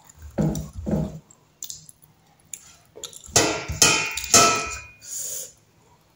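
Fingers scraping and gathering food on a metal plate. There are two short low sounds near the start, then a louder burst of scraping with a faint metallic ring a little past halfway.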